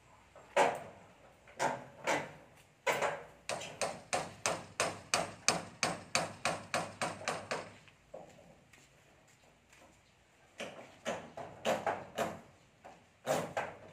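Hammers driving nails into metal roof sheets over wooden battens: a few single blows, then a quick run of about three or four blows a second for several seconds, a pause of about two seconds, and more blows near the end.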